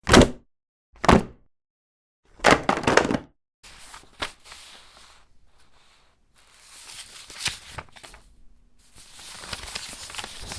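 Books dropped onto a floor with heavy thuds: two single drops about a second apart, then several landing in quick succession. After that come loose sheets of paper falling and sliding onto the floor in three soft rustling spells.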